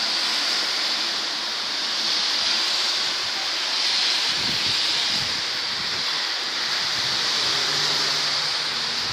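Steady hiss of outdoor noise on a wet street, with a few low thuds about four to five seconds in.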